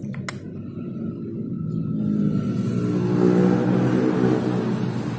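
Car engine running, heard from inside the cabin, growing louder about two seconds in. Two light clicks at the very start.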